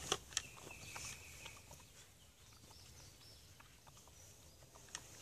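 Faint rustling and a few light clicks from a paper towel being handled, with a short high-pitched chirp about half a second in, over a quiet outdoor background.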